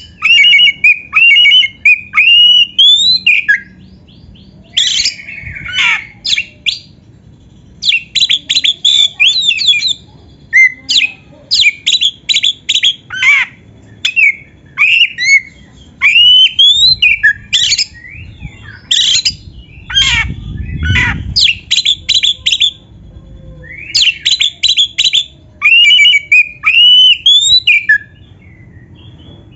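Oriental magpie-robin (kacer) singing: loud, varied phrases of clear rising and falling whistles mixed with fast runs of sharp repeated notes, broken by short pauses between phrases.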